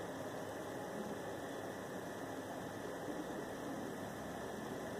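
Steady low hiss with a faint hum: room tone and recording noise, with no distinct sound.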